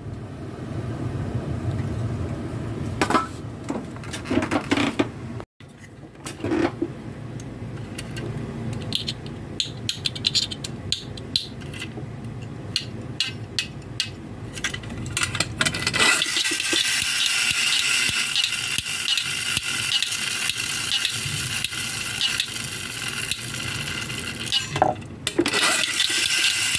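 Light metallic clinks and clicks of tin toy parts being handled. About two-thirds of the way in, a denser, steady rattling noise begins, with clicks running through it.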